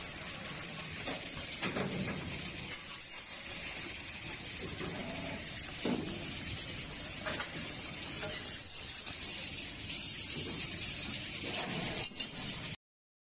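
Aluminium-profile CNC cutting machine at work: a steady hissing mechanical noise with occasional short clunks, and twice a faint high whine that slides slightly down in pitch. The sound cuts off suddenly near the end.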